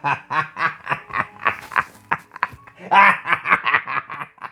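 A person laughing in rapid, short repeated bursts, with a louder run of laughter about three seconds in.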